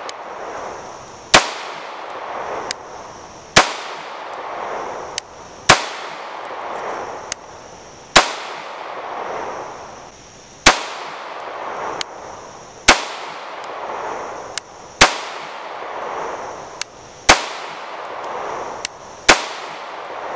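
Sphinx SDP Subcompact 9mm pistol fired nine times in slow, steady fire, one shot about every two seconds, with 115-grain FMJ rounds. Each report rings on briefly, and fainter clicks fall between the shots.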